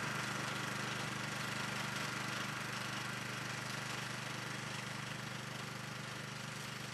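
Ride-on lawn mower engine running at a steady, even pitch while mowing grass.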